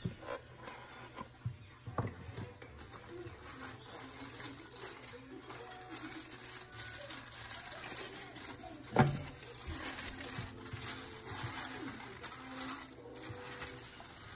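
Cardboard box being opened and black tissue paper wrapping rustling and crinkling as a package is unwrapped by hand, with small clicks throughout and a sharp knock about nine seconds in.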